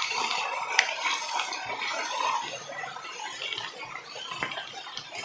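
Water splashing and trickling as an even hiss, with a few light clicks.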